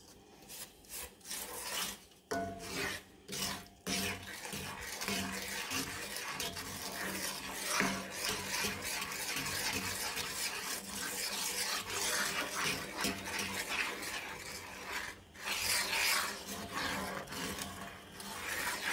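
Wooden spoon scraping and stirring a thick butter and brown sugar mixture around a cast iron skillet, a caramel base still grainy with sugar. Separate strokes at first, then near-continuous stirring from about four seconds in.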